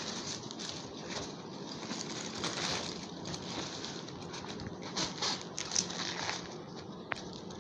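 Rustling and crinkling of a plastic waterproof bag being handled and pulled open, with bursts of sharper crackles around the middle and again a little later.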